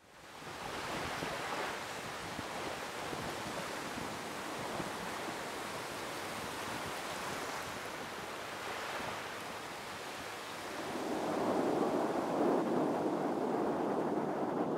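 Ocean surf washing onto a beach, a steady rushing that fades in from silence; about eleven seconds in it turns louder and lower.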